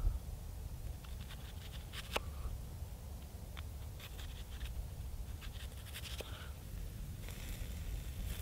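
Knife slicing an onion into thin rings on a split ash-wood board: short crisp cuts in small clusters, the blade clicking down onto the wood.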